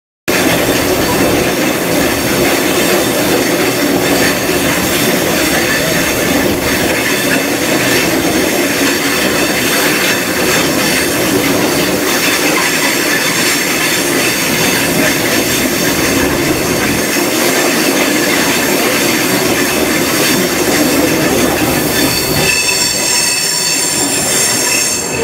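Chepe (Chihuahua al Pacífico) passenger train running through a curve, heard from an open doorway of a moving car: a steady rumble and rattle of wheels on rail. A high, steady wheel squeal sets in near the end.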